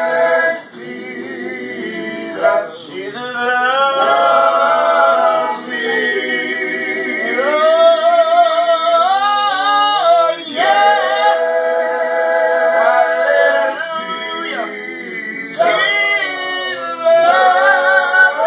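A group of men singing a cappella together, several voices in held, swelling phrases with vibrato and short breaks between lines.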